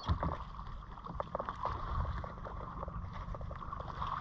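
Water lapping and sloshing against a kayak hull, with a low rumble of wind on the microphone and scattered small ticks and splashes.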